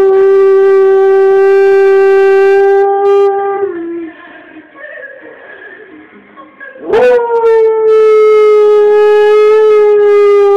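Pet dog howling along to music from a TV advert: two long held howls, the second beginning about seven seconds in with a quick upward slide and sinking slowly in pitch. Between them the advert's music plays more quietly.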